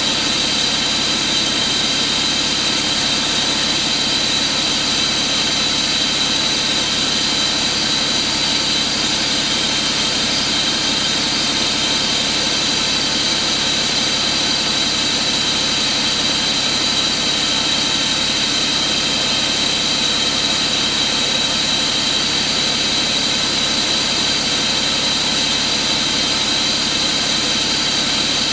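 Cummins ISX15 inline-six diesel engine running steadily with no revving, a steady high-pitched whine over the engine noise.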